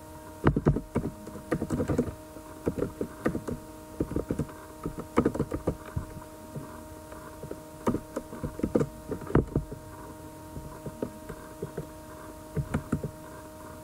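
Computer keyboard typing in short bursts of keystrokes, over a steady hum.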